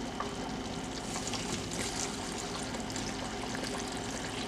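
Water poured from a stainless pot into a glass blender jar onto onion and soaked dried chiles: a quiet, steady stream with small crackles.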